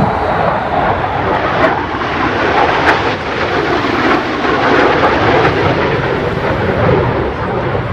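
Two F-35C Lightning II fighters flying past in formation, the loud, steady jet noise of their single Pratt & Whitney F135 turbofan engines filling the air.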